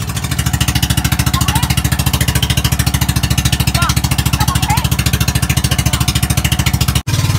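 An engine running steadily under load, with a rapid, even pulse, and a brief dropout about seven seconds in.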